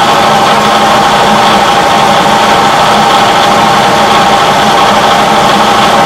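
Bridgeport milling machine running steadily, its spindle turning an edge finder: a constant hum with a hiss over it.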